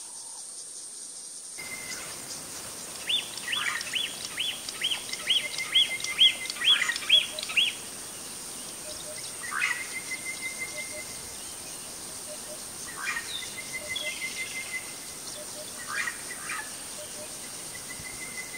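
Birds calling in the bush: a run of about ten repeated falling whistled notes, roughly two a second, then a few short calls and rapid trills, over a steady high insect hiss.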